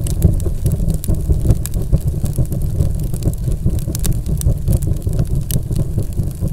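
Cinematic intro sound effect: a steady deep rumble strewn with crackling, spark-like clicks.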